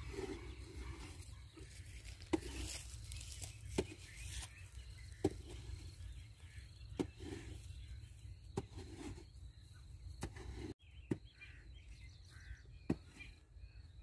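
Short-handled hoe chopping into dry field soil, a sharp strike about every second and a half with soil scraped between strokes, over a faint low rumble.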